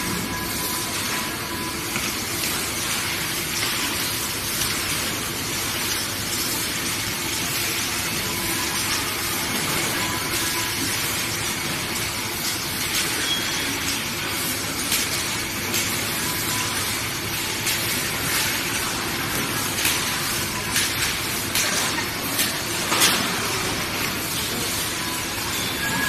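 Steady hissing factory-floor noise around a wire-harness assembly line, with scattered clicks and knocks in the second half.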